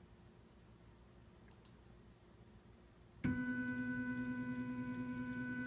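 Quiet room tone, then about three seconds in a MakerBot Replicator 2X 3D printer's stepper motors start driving the axis on linear ball bearings and run with a steady whine of several held pitches.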